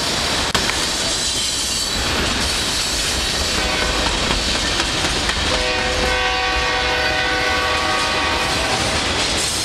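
Freight cars rolling past close by, a steady rumble with wheel clatter. About halfway through, a train horn sounds one held chord for about three seconds.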